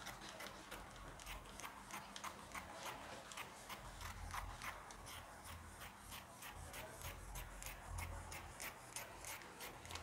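Red-handled dressmaking scissors cutting through ankara cotton wax-print fabric: a steady run of short, faint snips, about three a second, as the blades close stroke after stroke.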